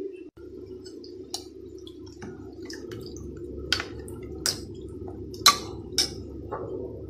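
Steel ladle stirring lentils, tomatoes and spice powders in water in a pressure cooker pot, the liquid sloshing, with a few sharp clinks of the ladle against the pot, the loudest about five and a half seconds in. A steady low hum runs underneath.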